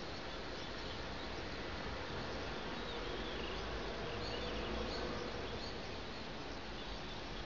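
Steady outdoor background noise: an even hiss over a low rumble, swelling slightly past the middle, with a few faint high chirps in the middle seconds.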